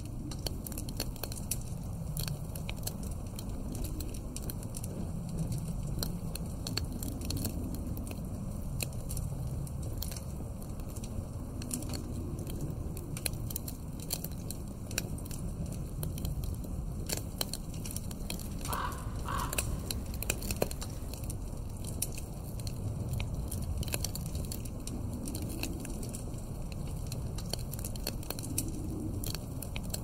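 Wood fire crackling in a fireplace, with constant small pops and snaps, over a low wind that swells and dies away in slow waves. About two-thirds of the way through there is a brief two-note higher sound.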